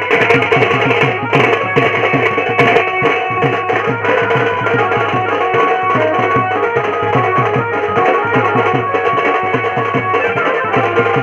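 Gondi dance song music: a fast, steady drum beat under a sustained melody.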